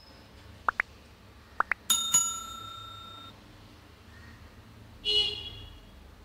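A metal kitchen vessel clinks and rings out about two seconds in, with a second, shorter ringing clink near the end. Before the first clink come two pairs of very short rising squeaks.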